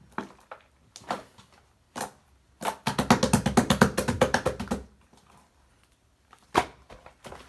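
Slime being squished and stretched by hand: scattered sticky clicks and pops, then about two seconds of rapid crackling pops near the middle as it is pressed.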